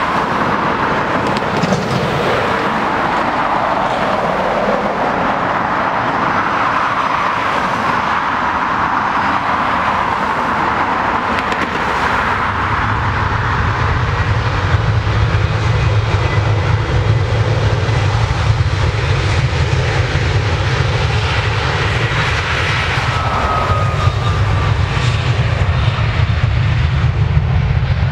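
Jet airliner engines at takeoff power. At first there is a loud whine with a hiss. From about halfway a deep roar takes over as a Ryanair Boeing 737 passes on its takeoff roll, and the roar holds steady.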